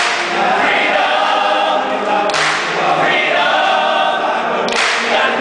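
Large men's chorus singing an up-tempo pop song in full voice, with hands clapping along.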